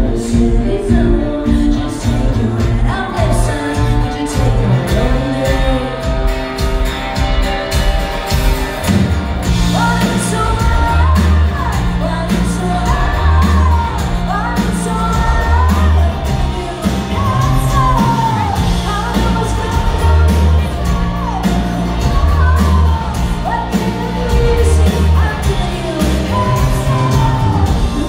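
Live rock band playing: a female lead vocal over acoustic and electric guitars, bass and drums, heard from within the audience in a large room. The singing comes to the fore about a third of the way through.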